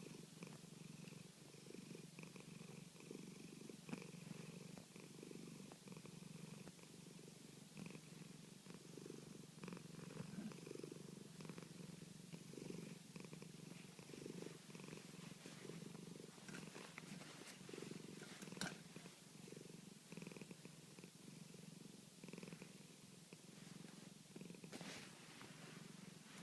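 Domestic cat purring steadily while being massaged, a faint continuous pulsing rumble.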